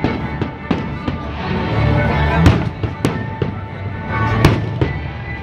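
Fireworks bursting overhead: a string of about ten sharp bangs at uneven intervals, the loudest about halfway through and another near the end, over music playing throughout.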